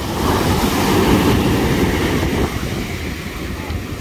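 Heavy surf in a rough sea: a wave breaking and rushing up the shore, swelling about a second in and easing off, with wind rumbling on the microphone.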